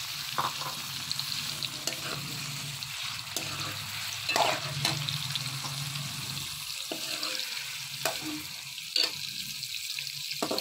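Raw chicken pieces sizzling in hot oil and butter in a metal karahi as they are first browned. A slotted metal spoon scrapes and clinks against the pan every second or two as the pieces are stirred.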